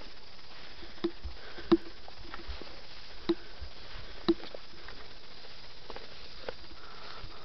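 Footsteps through tall dry grass: a few sharp ticks, roughly a second apart, over a steady faint rustle.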